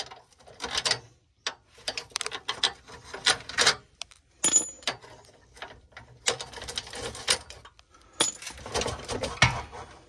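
BMW E46 exhaust pipe rattling and clunking in irregular bursts as it is shaken by hand at its clamped sleeve joint, which is loose and leaking.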